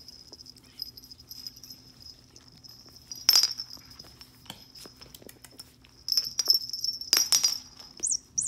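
Teacup Yorkshire terrier puppies squeaking and whining in high voices while play-biting and wrestling, with a loud short squeal about three seconds in and a louder run of squeals from about six seconds.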